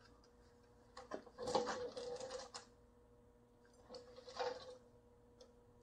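Two short bouts of light clicking and rustling as parts and tools are handled, the first about a second in and the second near four seconds, over a faint steady hum.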